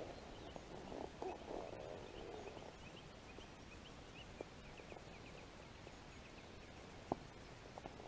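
Faint lakeside ambience: a low sloshing rustle in the first couple of seconds, then a bird chirping in a quick faint series. A sharp click about seven seconds in is the loudest moment.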